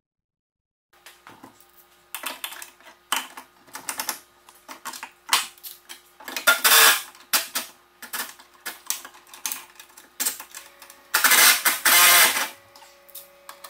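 Irregular metallic clicks, clanks and rattles of hand tools and loose metal parts being worked, starting about a second in, with two longer rattling scrapes about six and eleven seconds in.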